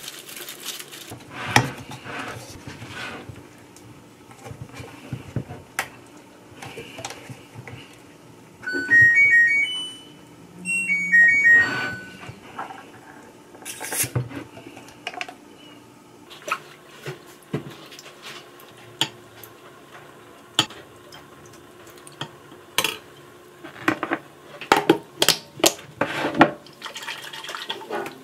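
Kitchen handling sounds: scattered clicks and knocks of a glass jar and a plate being handled, with a quick run of sharper clinks near the end. Two short melodic jingles of stepped notes, each about a second and a half long, come in about nine and eleven seconds in and are the loudest sounds.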